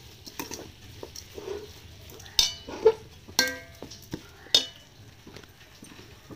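A metal spoon stirring and scraping a crumbly white mixture in a metal pot. It clinks against the pot several times between about two and five seconds in, and the loudest strikes ring briefly.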